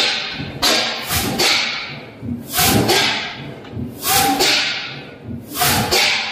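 1923 Crossley OE228 diesel engine running slowly just after its first start: heavy exhaust beats roughly once a second, unevenly spaced, each dying away in a long echo.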